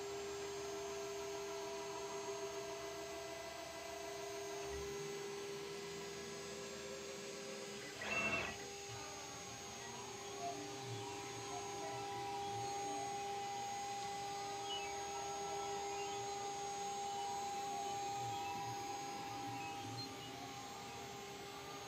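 Wattsan 0609 mini CNC router running unloaded: the spindle spins at about 24,000 rpm with a steady whine, and the axis drives move the head with tones that hold steady, then sweep up and down as the tool traces a circle in the air. A brief louder noise comes about eight seconds in.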